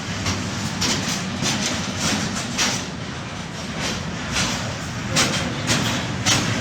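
Freight train passing, its wagon wheels clattering over rail joints and points in a string of sharp, irregular knocks over a steady low rumble.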